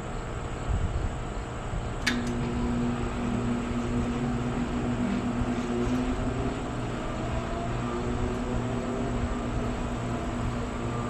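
2011 Bryant Evolution 4-ton heat pump with a scroll compressor starting up in cooling mode. About two seconds in there is a sharp click, and a steady hum sets in. A whine then rises slowly as the unit comes up to speed.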